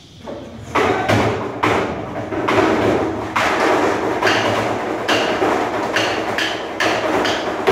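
Stick percussion on black plastic barrels and a metal trash can, played by a group. The strikes begin sparse about a second in and come faster toward the end, building into a steady rhythm.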